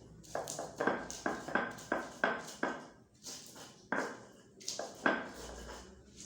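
Kitchen utensil striking repeatedly, about three sharp knocks a second with a short metallic ring, then a pause and three more knocks.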